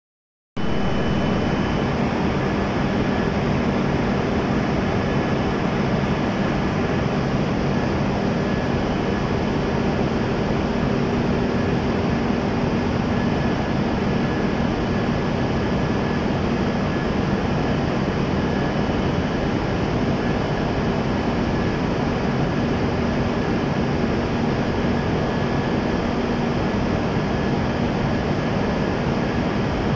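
Steady hum of an E7-series Shinkansen train standing at the platform, its air-conditioning and equipment fans running, with a few steady tones over an even hiss.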